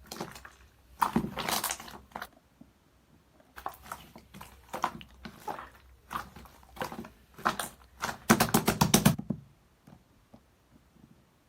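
Irregular clicks, taps and handling knocks in a small room, with a quick run of rapid tapping about eight seconds in.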